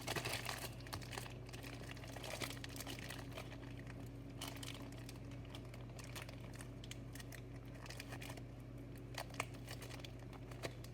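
Crinkling and rustling of packaging being handled, with scattered small clicks, over a low steady hum.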